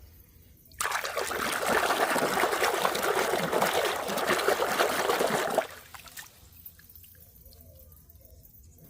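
Water running and splashing, starting about a second in and stopping fairly suddenly about five seconds later.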